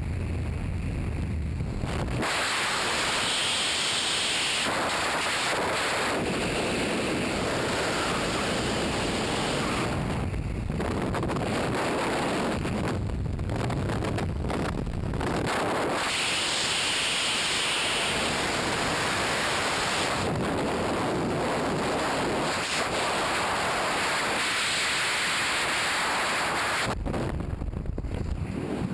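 Freefall wind rushing hard over the camera's microphone during a tandem skydive, rising and falling a little as the pair turn. Near the end the main parachute opens: the high hiss drops away and a lower rumble takes over.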